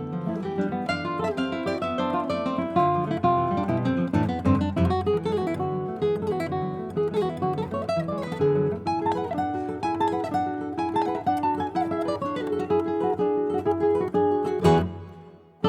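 Two classical guitars playing a duo piece, a continuous flow of plucked notes over lower bass lines. Near the end a strong chord is struck and the sound dies away into a brief pause.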